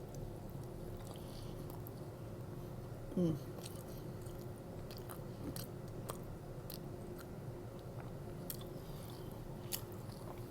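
Close-up chewing of cheesy pizza fries: soft wet mouth clicks and smacks scattered through, with a short low vocal sound, falling in pitch, about three seconds in.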